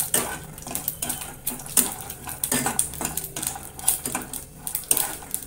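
Steel spatula scraping and knocking against a non-stick kadai while stirring peanuts as they roast, the peanuts rattling across the pan; an uneven clatter of about two or three strokes a second.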